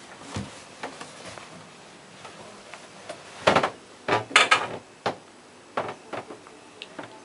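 Irregular knocks and clatters, about a dozen in all, loudest in a tight cluster around the middle.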